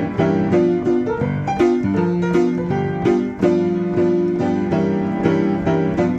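Player piano playing a popular song from a perforated QRS paper music roll, the notes struck as a steady beat of chords over a melody.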